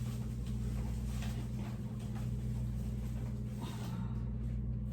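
Steady low electrical hum with faint, scattered light knocks and rustles of things being handled.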